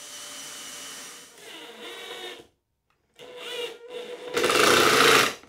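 Cordless drill-driver driving screws into plywood: a steady motor whine, then several short runs that rise in pitch and stop, the last and loudest near the end.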